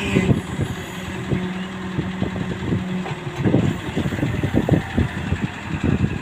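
Excavator's diesel engine running, with a steady hum that stops about three seconds in and a run of irregular low knocks and thuds.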